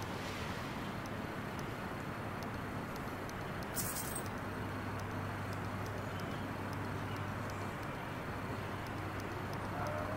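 Steady background noise, with a low hum that comes in about halfway and a brief high hiss about four seconds in.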